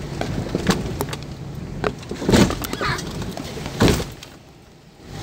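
Toyota Land Cruiser 100 crawling over rocks on a rough off-road track: a low engine rumble with repeated knocks and clunks from the body and suspension, the two loudest about two and a half and four seconds in.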